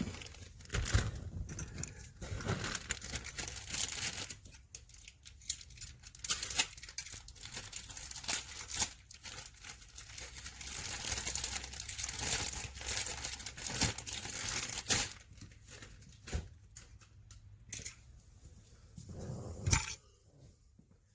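Hard plastic parts being handled and fitted together: irregular rustling and scraping with scattered clicks, and one sharp louder knock near the end.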